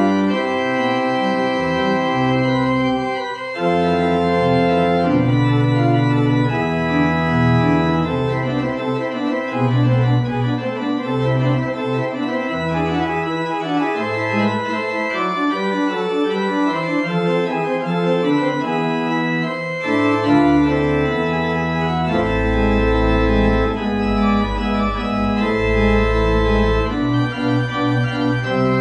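Organ playing a closing voluntary at the end of a church service: held chords with a moving line of notes above. Deep bass pedal notes come in about three quarters of the way through.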